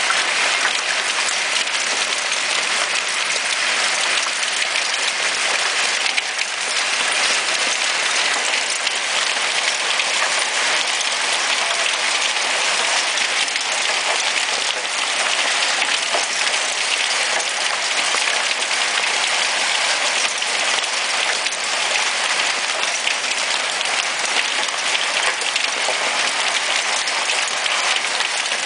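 Small hailstones falling steadily onto a wooden deck and a glass-topped patio table: a dense, even clatter of countless tiny impacts that does not let up.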